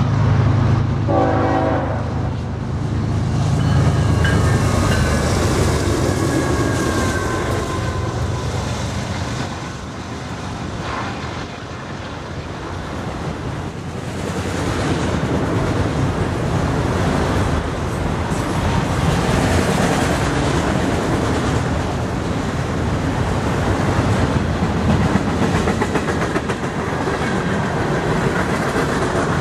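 BNSF freight train passing close by: the lead diesel locomotives rumble past with a short horn blast about a second in, then a long string of autorack and tank cars rolls by with a steady clickety-clack of steel wheels over the rail joints.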